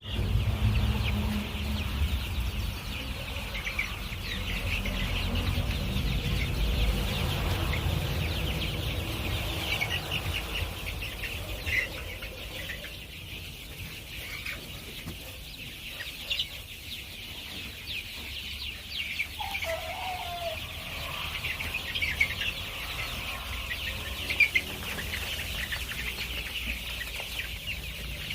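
A poultry flock clucking and calling, with many short high calls throughout and one lower, drawn-out call about twenty seconds in. A low rumble runs under the first twelve seconds or so.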